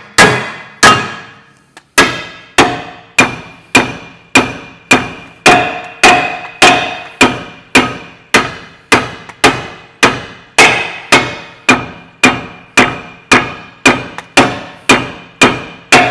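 Steady hammer blows on a car's front lower suspension arm, about two a second, each ringing briefly like struck metal, with a short pause early on: the opened ball-joint mounting plate being hammered flat again.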